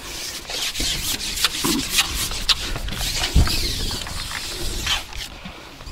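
Close, irregular rubbing and scraping with scattered clicks and knocks, the sound of things being handled near the microphone.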